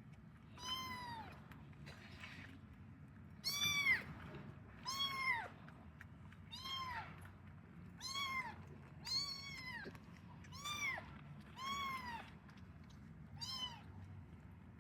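Young kitten meowing over and over: about ten high-pitched mews, each rising and then falling in pitch, a second or so apart.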